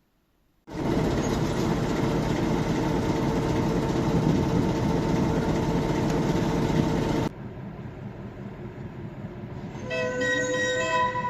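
Train running loud and steady on the rails with a held tone over the noise, starting abruptly just under a second in and cut off suddenly about seven seconds in. A quieter rumble follows, and a wind instrument begins playing near the end.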